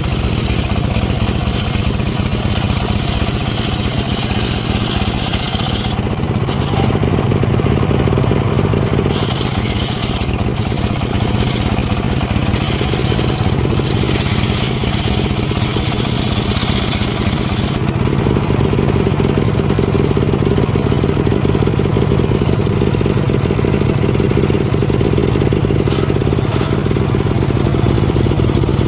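Engine-powered wood saw running steadily while cutting timber. A high hiss of the blade in the wood fades and returns as the cut goes on.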